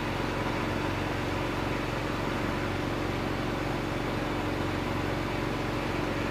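Steady mechanical hum of running machinery, an unchanging drone with a few constant low tones.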